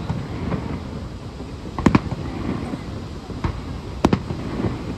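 Aerial firework shells bursting: two loud bangs, about two seconds in and about four seconds in, with fainter bangs between.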